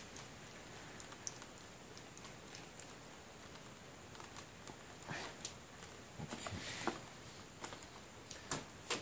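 Faint clicks and light knocks of plastic and metal fuser-unit parts being handled and fitted together by hand. They come scattered, most of them in the second half.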